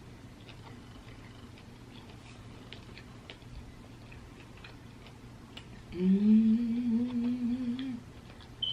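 A woman's closed-mouth "mmm" hum of about two seconds, starting about six seconds in and held at a nearly steady pitch. Before it there are only faint, scattered small clicks of eating.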